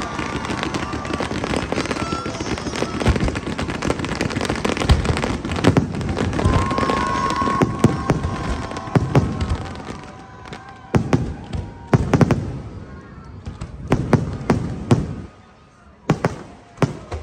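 Aerial fireworks display: a dense stretch of crackling and booms from bursting shells, thinning out about ten seconds in to separate loud bangs with short gaps between them.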